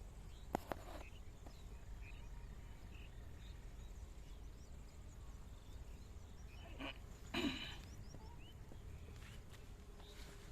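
Outdoor ambience: a steady low wind rumble with faint high chirps, a sharp click about half a second in, and a short pitched call at about seven seconds in.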